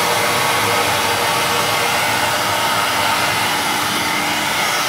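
Flux recovery suction on a submerged-arc welding carriage running steadily: a constant blower rush as it vacuums the loose welding flux powder back up for reuse.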